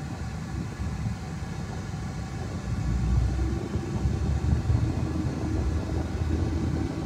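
Car driving heard from inside the cabin: a steady low rumble of tyres and engine on the road, growing louder about three seconds in.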